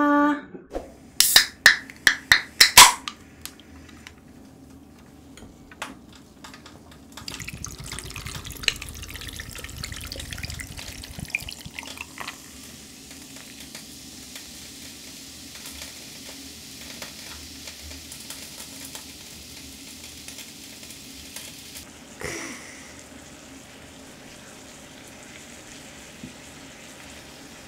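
Grape soda poured over ice into a glass, with a short run of sharp clicks near the start. Later, about three quarters of the way through, marinated duck ribs hit a hot grill pan with a sudden hiss and go on sizzling steadily.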